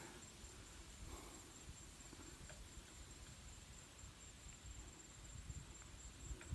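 Near silence: faint outdoor background with low rumble, a thin steady high tone and a few faint ticks.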